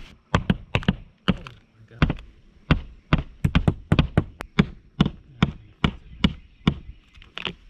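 A run of about twenty sharp knocks at an uneven pace, two to three a second, some in quick pairs.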